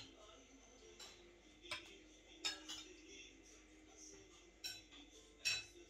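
A metal spoon clinking against a ceramic soup bowl while eating: about six short, sharp clinks spread unevenly, the loudest near the end, over a faint steady hum.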